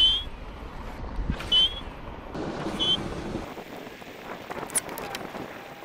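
Wind buffeting the microphone, its low rumble falling away a little past halfway, with three short high chirps in the first three seconds and a few light clicks near the end.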